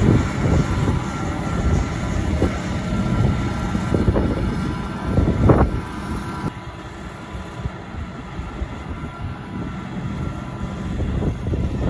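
Diesel engines of farm machinery (a wheel loader and tractors) running, a low rumble with a few knocks. About six and a half seconds in the sound drops slightly and changes to a different engine's running.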